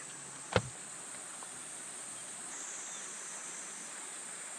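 Quiet outdoor ambience: a steady high hiss, with one short knock about half a second in.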